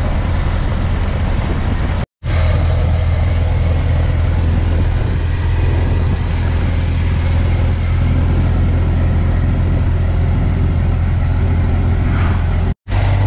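1920 Ford Model T's four-cylinder side-valve engine running steadily at cruising speed, heard from inside the open car along with road noise. The sound cuts out completely for a split second twice, about two seconds in and near the end.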